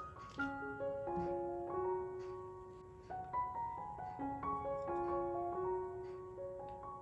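Background music: a gentle piano melody of single held notes.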